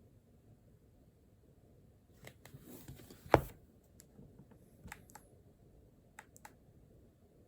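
Small handling sounds at a study desk: a brief rustle and clicks, one sharp knock about three seconds in, then a few faint scattered clicks.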